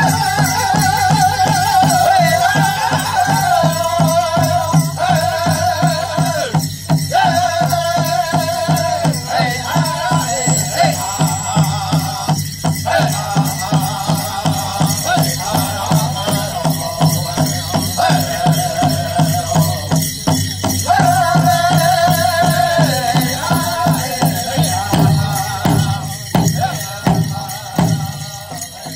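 Powwow drum group singing over a steady beat on a big drum struck by several drummers together, with high, wavering voices. Near the end the singing falls away and a few heavier drum beats stand out.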